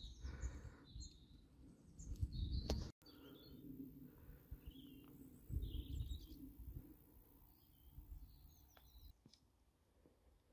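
Birds chirping in short, scattered calls, faint, over a few low rumbling bursts.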